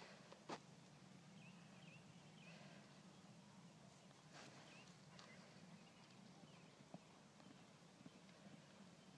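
Near silence: faint field ambience with a low steady hum, a few soft high chirps and an occasional faint tap.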